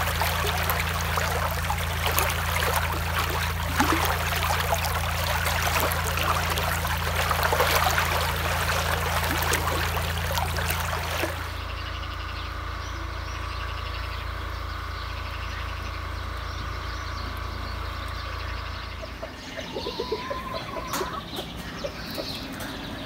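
Birds chirping and chickens clucking, over a steady low hum for the first eleven seconds or so; the sound changes abruptly about eleven seconds in and again near the end.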